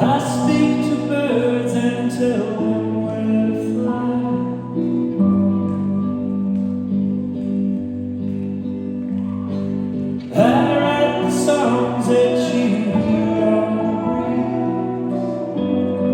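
Live band playing, with a lead vocal singing over sustained chords; a new, louder sung phrase comes in about ten seconds in.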